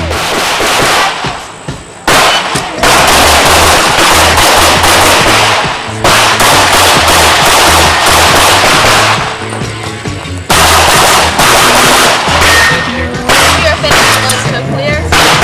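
Rapid pistol shots from a competition Open-division pistol, fired in fast strings with short breaks about two seconds in and again near ten seconds, heard together with music that has a steady bass beat.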